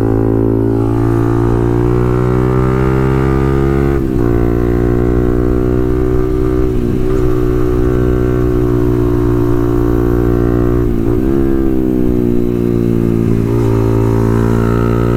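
Motorcycle with a Pro Liner full-system exhaust running steadily under way. The engine note dips briefly and comes back three times, about 4, 11 and 13 seconds in.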